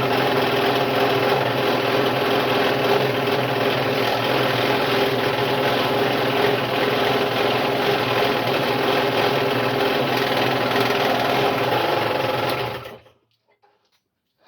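Scroll saw running steadily and cutting through wood with a new blade, a fast reciprocating hum; it is switched off near the end and stops abruptly.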